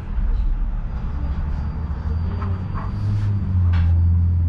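Low steady hum inside a tram standing at a crossing, with street traffic passing; a thin high whine comes in about a second in, and a vehicle passing close alongside brings a louder low rumble near the end.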